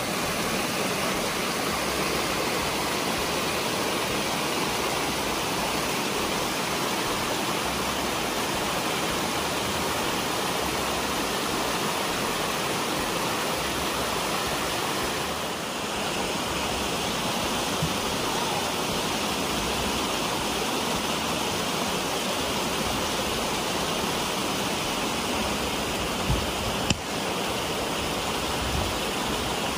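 Shallow stream of water rushing steadily over rocks where it spills out of a pond, with one short knock near the end.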